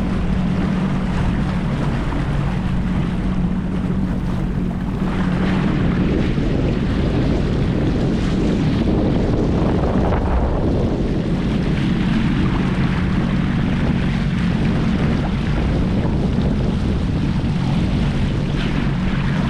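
Jet ski engine running steadily with a constant pitch, with wind buffeting the microphone and water rushing past the hull.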